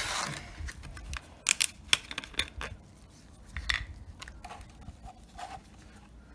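Handling noises: clicks, scrapes and rustles from a gloved hand on a cardboard oil-filter box and a plastic oil bottle, with the bottle's screw cap twisted off in the second half.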